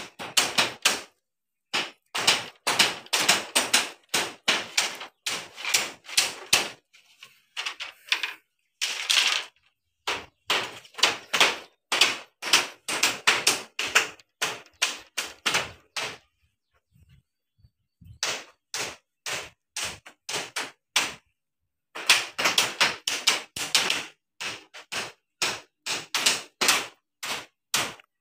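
Hammers nailing split-bamboo floor slats: quick runs of sharp knocks, about four a second, broken by a couple of short pauses.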